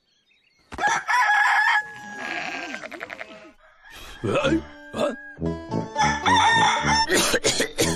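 Rooster crowing a long cock-a-doodle-doo about a second in, its held note trailing off downward. From about halfway, music with a steady beat comes in, and the rooster crows again over it.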